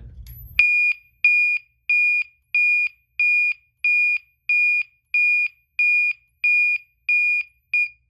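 System Sensor MASS-24ADA horn strobe's electronic MA horn sounding a pulsed tone: evenly spaced high-pitched beeps, a little under two a second, that stop just before the end.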